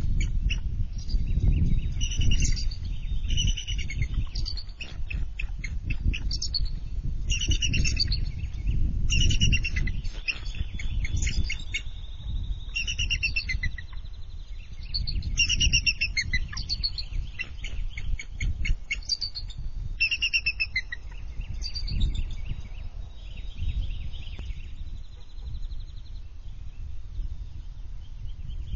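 Adult bald eagles giving high, chittering calls and trills in repeated bursts, dying away after about twenty seconds, over a steady low rumble. This is defensive alarm calling at an intruder near the nest, likely another eagle.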